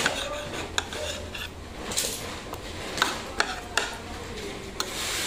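Metal fork and spoon clinking and scraping against a plate while cutting food, about eight sharp clinks at irregular intervals.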